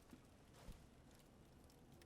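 Near silence: faint room tone with two soft ticks, one just after the start and one about two-thirds of a second in.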